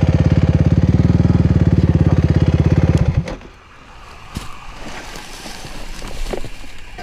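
Suzuki RMX450Z's single-cylinder four-stroke engine idling with an even pulse, overheated after a hard hill climb, then stopping abruptly about three seconds in. After that come faint rustling and a few light knocks.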